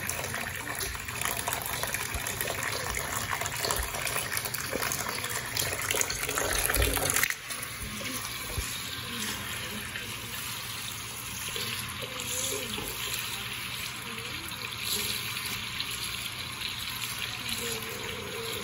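Bathtub tap running, a stream of water pouring into a filling tub. About seven seconds in the sound drops suddenly and turns thinner and higher.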